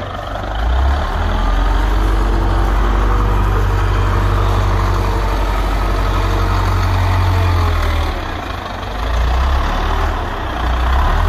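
Wheel loader's diesel engine running hard under load as it pushes and heaps manure compost to mix it. It sounds like a heavy, low rumble that eases off briefly a couple of times as the machine changes direction.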